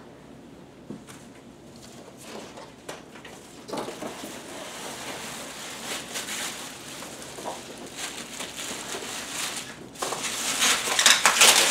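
Plastic wrapping and foam packing rustling and crinkling as a subwoofer is lifted out of its cardboard box and handled, after a few light knocks in the first few seconds; the crinkling is loudest near the end.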